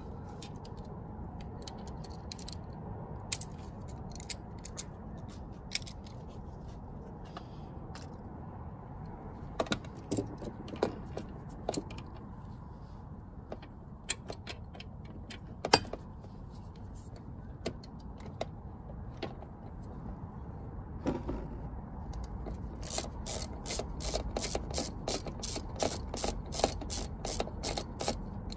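Socket ratchet on a long extension, with scattered metallic clicks and clinks as it is fitted and worked on a bolt. Near the end it ratchets in a quick even run of about four clicks a second.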